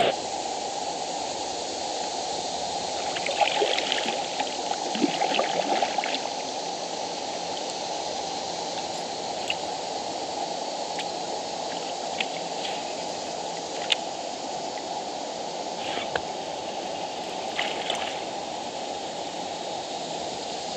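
River water rushing steadily over rocks and shoals, with scattered short clicks and ticks on top, a cluster of them about three to six seconds in.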